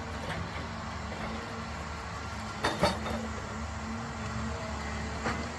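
Heavy machinery running with a steady low hum and rumble, with two sharp metallic knocks close together about halfway through.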